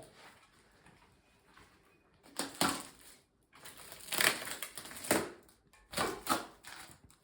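Packaging material being handled and crumpled while a bicycle is unpacked: several short noisy bursts of handling sound, starting about two seconds in.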